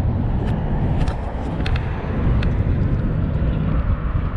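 Wind rumbling steadily on the camera's microphone, with a few faint sharp clicks in the first couple of seconds.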